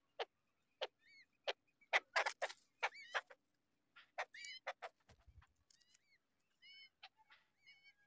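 Nestlings begging at the nest: many short, sharp chirps and clicks, with a few brief squeaky calls that curve upward, while an adult bird feeds them.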